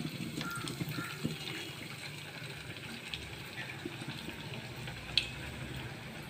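A semolina-coated sweet corn samosa deep-frying in hot oil in a steel pan: a steady bubbling sizzle with the odd faint crackle.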